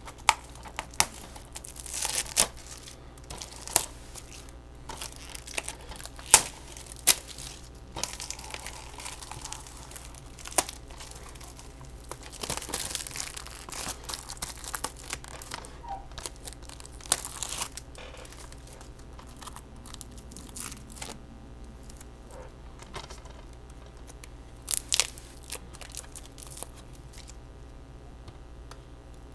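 Plastic shrink-wrap being torn and peeled off a DVD case, crinkling and crackling in irregular bursts with sharp snaps now and then.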